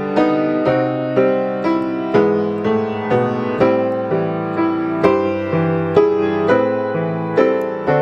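Grand piano being played: a melody over low bass notes, keys struck in an even run of about two notes a second.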